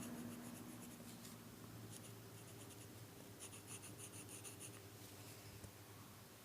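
Faint scratching of a drawing tool on paper in short strokes, with a quick run of about six strokes a second a little past the middle.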